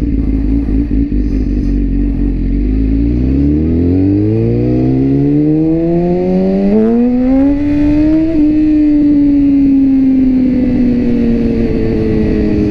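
BMW S1000RR's inline-four engine pulling hard in one gear, its pitch climbing steadily for about six seconds, enough to lift the front wheel slightly. Then the throttle is rolled off and the revs fall away slowly.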